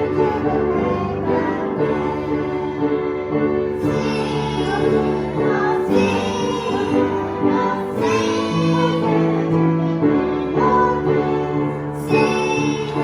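Worship music: singing over a sustained instrumental accompaniment of held chords.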